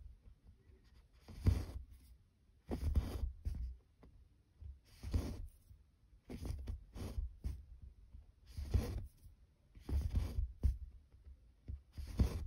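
Needle and embroidery floss being drawn through stretched cross-stitch fabric, a scratchy rasp of thread on fabric about every second and a half, one stitch after another.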